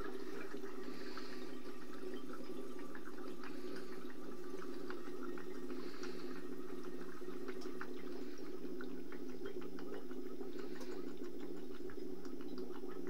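Beer running into glass bottles on a homemade counter-pressure bottle filler, with many small ticks over a steady low hum.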